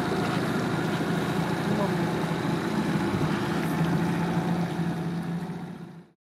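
Small boat's motor running steadily under way, a constant hum with water and wind noise; it cuts off abruptly near the end.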